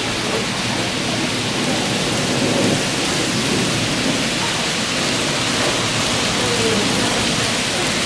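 N-gauge model train running along a layout's track: a steady, even rushing rattle of its wheels rolling over the rails.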